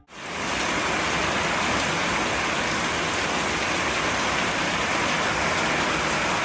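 Rain falling steadily, a dense, even hiss that fades in at the start and holds without change.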